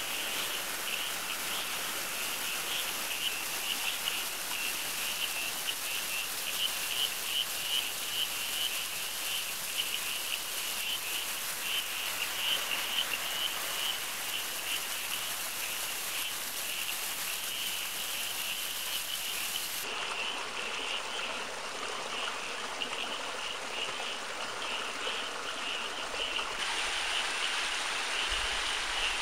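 Rainforest chorus of calling frogs, a continuous high pulsing trill, over a steady hiss of running water that changes in tone about twenty seconds in.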